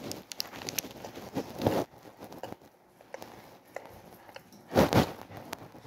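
Close-up mouth sounds of someone biting and chewing a chocolate-coated coconut bar, with scattered small clicks and two louder noisy bursts, about two seconds in and near the end.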